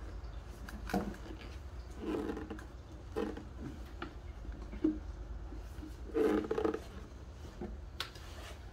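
Scattered clicks, taps and short scrapes of hand tools and small parts being handled on a workbench, over a steady low hum. The loudest bursts come about two seconds in and again around six seconds.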